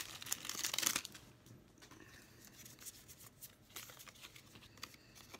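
Foil wrapper of a Pokémon trading card booster pack being torn open and crinkled, loudest in the first second. After that come faint rustles and small clicks of the wrapper and cards being handled.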